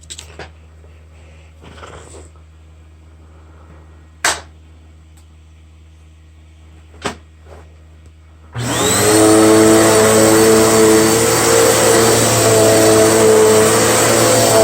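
A few sharp clicks and knocks from handling the Dirt Devil Powermax XL vacuum cleaner, the loudest about four seconds in. Then, about eight and a half seconds in, its motor is switched on, spins up with a rising whine and runs loud and steady.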